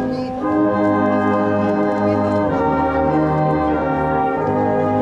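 Miners' brass band playing a slow piece in long, held chords that change every second or so.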